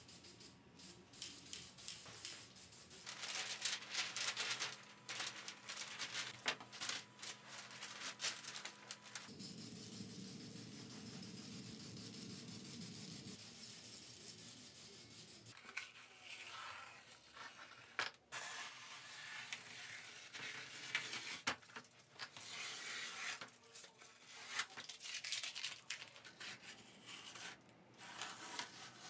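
Aerosol spray-paint can spraying in repeated bursts of hiss, a second or several seconds at a time. Near the end, masking tape being peeled off a painted plastic fuselage.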